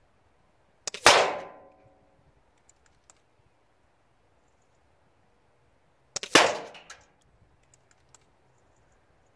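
Two shots from an Air Arms S510 SL .22 PCP air rifle, sharp cracks about five seconds apart, each fading out within a second, with a few faint clicks between them.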